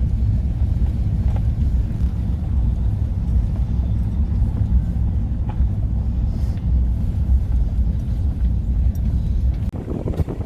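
Low, steady rumble of a car on the move, its road and engine noise carrying little above the deep end.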